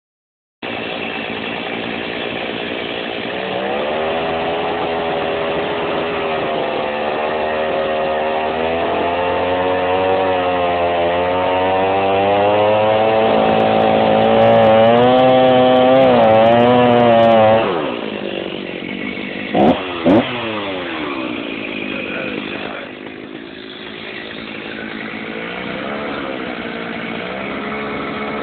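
Gas chainsaw running at high throttle while sawing through a deer's skull to remove the antlered skull cap, its pitch wavering and climbing as it works in the cut. About 17 seconds in the revs drop; two short loud bursts follow, and then it runs on lower and steadier.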